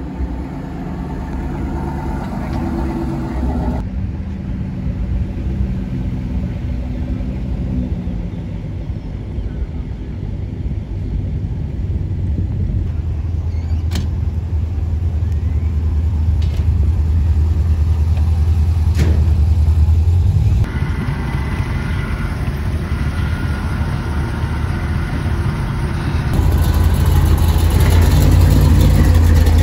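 Car engines rumbling as one car after another drives slowly past: a pickup truck, then a C6 Corvette's V8, then a C3 Corvette Stingray's V8. Each clip cuts abruptly to the next, and the last car is the loudest.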